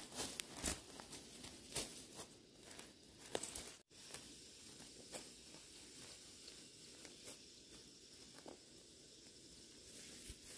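Hands pulling weeds out of dry soil: rustling, tearing and crackling of leaves and roots, with many short clicks. It drops out briefly about four seconds in and goes on fainter and more sparse after that.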